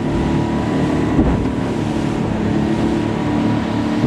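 Tiller outboard motor of an aluminium tinny running steadily under way at speed, with water rushing past the hull and wind buffeting the microphone.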